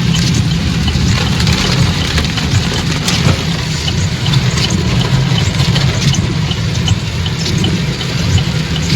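Car driving on a wet road in rain, heard from inside the cabin: a steady low road-and-engine rumble with the hiss of tyres on water and a scatter of small taps.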